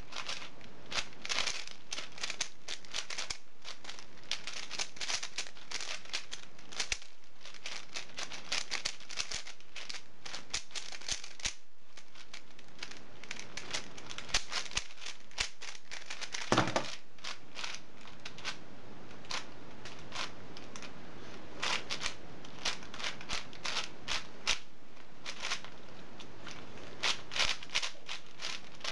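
Plastic puzzle cubes being turned fast by hand: a dense, irregular clatter of clicks as the layers snap round, with one heavier knock about halfway through.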